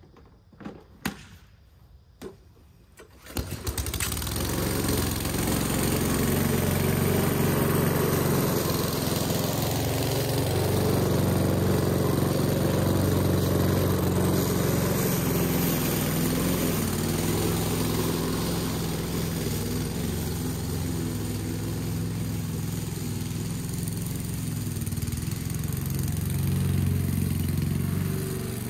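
A few clicks, then the Aldi Ferrex 20-inch self-propelled petrol lawn mower's engine starts about three and a half seconds in and runs steadily.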